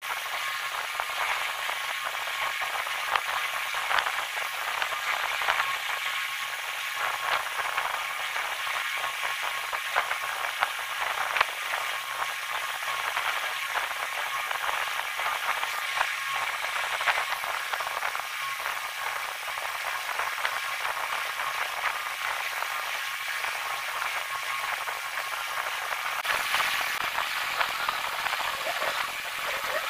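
Pen and coloured pencil scratching on paper: a steady dry hiss with many small ticks, harsher for a moment a few seconds before the end.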